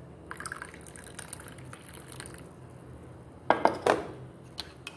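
Hot milk being poured from a pan into a cup of coffee: a soft, even trickle of liquid filling the cup, followed about three and a half seconds in by a few sharp clinks against the cup.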